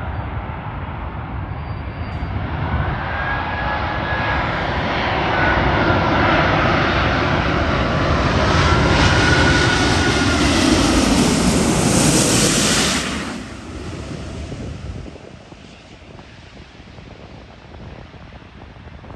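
Airbus A380's four jet engines on final approach with landing gear down, the roar building as the airliner nears, with whining fan tones that slide in pitch as it passes over. The sound drops off sharply about thirteen seconds in, leaving a fainter rumble as it moves away.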